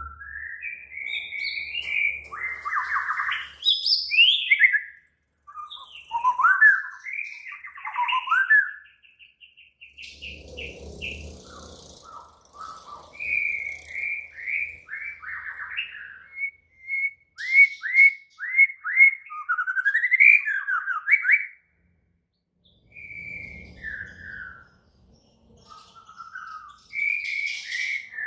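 White-rumped shama (murai batu) singing an agitated, aggressive song: loud, varied whistled phrases, slurred notes and quick trills, broken by short pauses, with a fast run of repeated notes in the middle.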